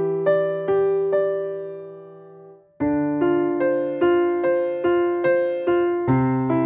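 Background piano music: a gentle melody of single struck notes that ring and fade, with a short lull about two and a half seconds in before the playing resumes.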